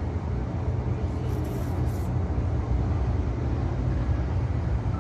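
Steady low outdoor rumble, strongest in the bass, with a brief hiss about a second and a half in.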